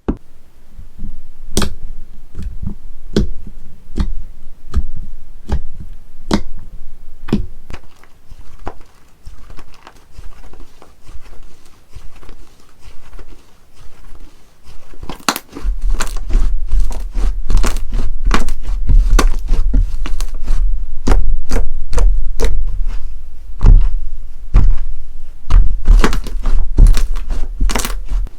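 Slime being squeezed, pressed and poked by hand, making a string of irregular sharp clicks and pops. About halfway through, the popping becomes denser and louder, with a heavier low thud under it.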